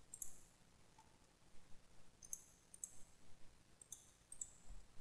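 Faint computer mouse button clicks: about five short, sharp clicks at uneven intervals.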